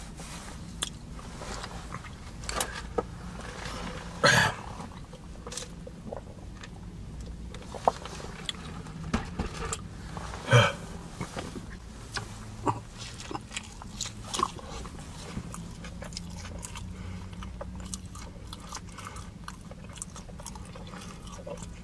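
Close-up mouth noises of a person chewing a bite of sushi burrito: wet smacking and small clicks scattered throughout, with louder smacks about four seconds in and again around ten and a half seconds, over a steady low hum.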